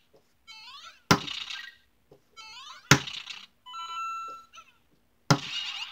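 LEGO Super Mario interactive figure in the Builder Mario outfit stomping on a Bowser Jr. piece: three sharp knocks about two seconds apart, each with electronic chirps, rising bleeps and steady beeps from the figure's speaker as the hits land on the enemy.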